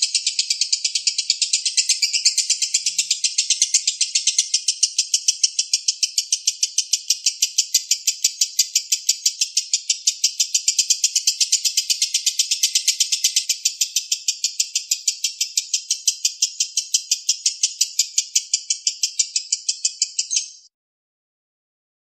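A lovebird singing one long unbroken chatter of rapid, evenly spaced high-pitched notes, which cuts off abruptly about a second before the end.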